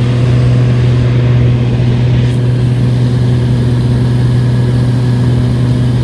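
Single-engine high-wing light aircraft's piston engine and propeller droning steadily in cruise, heard inside the cabin: a strong constant low hum over an even rush of air.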